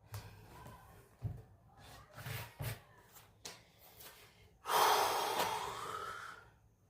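A few light knocks and taps from handling and adjusting a speaker cabinet, then a long breathy exhale of about two seconds, the loudest sound here.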